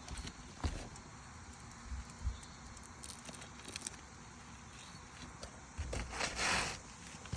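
An asphalt roof shingle being handled and slid into place. A few soft knocks come early, then a scraping rustle lasts about a second, around six seconds in.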